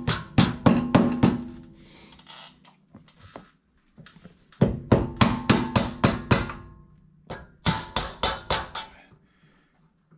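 Mallet blows on a socket, driving the rubber exhaust-hanger isolators of a Honda Talon farther onto their frame pegs. The blows come in three quick runs, about three a second, each blow ringing briefly.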